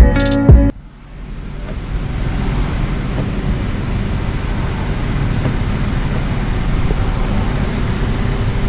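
A steady rushing background noise with a low hum underneath, slowly growing a little louder.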